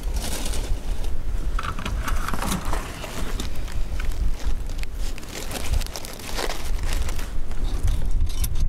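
Dry leaves rustling and crackling, with metal clinks and scrapes, as a steel body-grip (Conibear-style) trap is handled and set down in the leaf litter. A steady low wind rumble on the microphone runs underneath.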